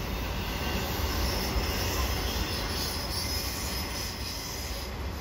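Autorack cars of a freight train rolling past on the rails: a steady rumble of wheels on track, with a faint high whine for a couple of seconds about a second in.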